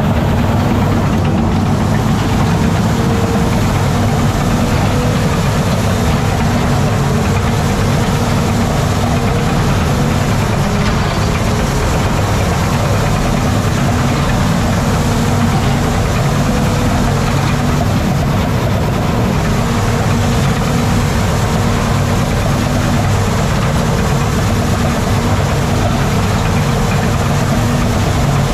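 Crawler bulldozer's diesel engine running steadily, heard from inside the operator's cab, a loud low drone that does not let up.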